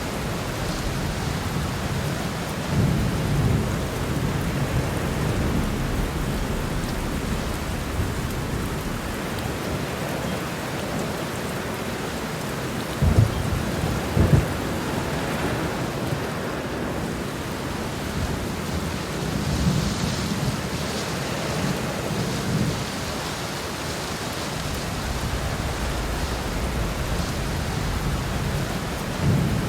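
Heavy rain falling steadily in a thunderstorm, with low thunder rolling several times. Two sharp, loud thunderclaps come close together about halfway through.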